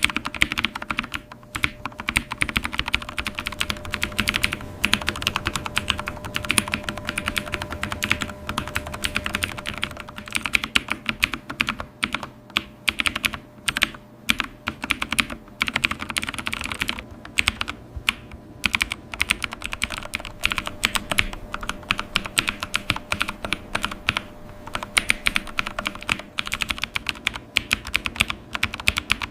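Fast, continuous typing on a computer keyboard: a dense run of key clicks with a few short pauses, over a faint steady hum.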